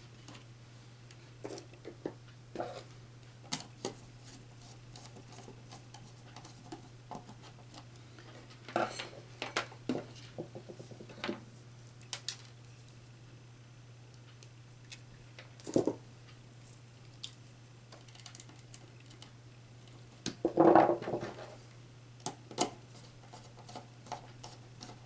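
Scattered small clicks, taps and scrapes of hands working wires into a contactor's coil terminals and handling a pair of wire strippers, with a few louder bursts of handling, over a steady low hum.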